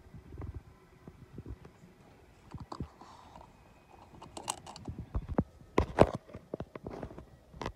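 Scattered clicks, knocks and rustles of hands working a van's filler cap and flap and of the phone being handled, with the loudest knocks about six seconds in and a last sharp click near the end.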